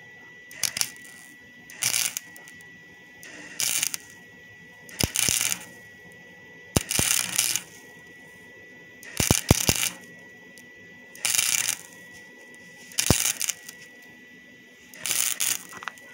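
Electric arc welding in short stitches: about nine crackling bursts of the arc, each lasting around half a second to a second and coming every second and a half to two seconds. A faint steady high whine runs underneath.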